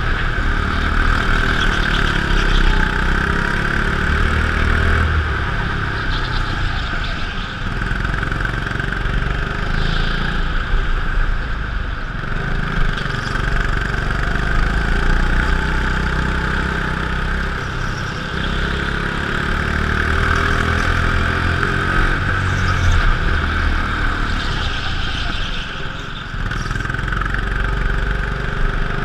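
Go-kart engine running continuously on a lap, heard from on board the kart; the level dips slightly a few times, as when easing off for corners.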